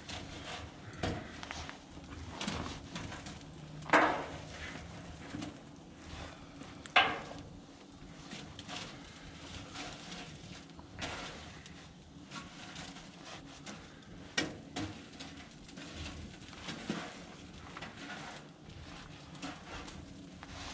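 Fire poker knocking and clanking against burning logs and the steel firebox of an offset smoker, scattered through the stretch. The two loudest clanks come about four and seven seconds in.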